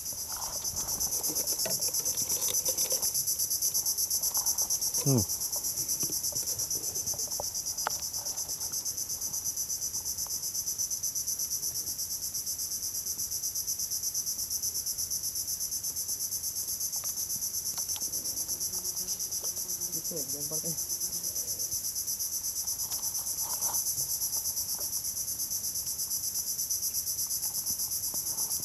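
A steady, unbroken chorus of insects: a high continuous whine at two pitches. A short falling sound comes about five seconds in.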